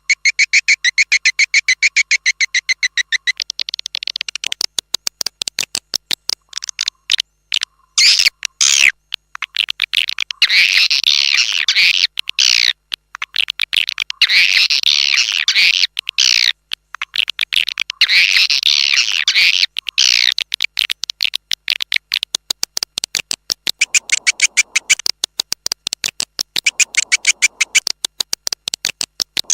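Edible-nest swiftlet calls played as an external lure track for a swiftlet house: rapid high-pitched chirping pulses, broken by longer twittering trills about every four seconds in the middle stretch. The recording has no low end at all.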